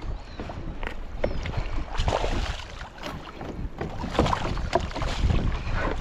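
Water splashing and sloshing around a fishing kayak in choppy sea, with wind rumbling on the microphone.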